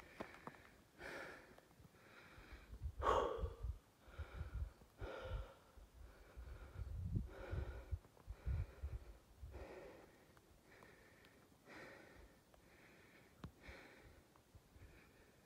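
A person breathing fast and audibly close to the microphone, a breath roughly every second. Low gusts of wind rumble on the microphone through the first half.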